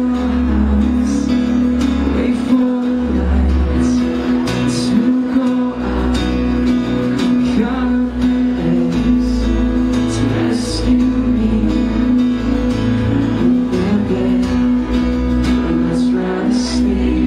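Live amplified acoustic guitar strummed in a steady rhythm under a man's singing, with a deep bass underneath.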